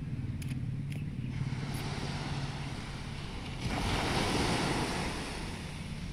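Small waves breaking on a sandy beach, with a louder rush of surf that swells a little past halfway and fades over about a second and a half. Under it runs a steady low rumble of wind on the microphone.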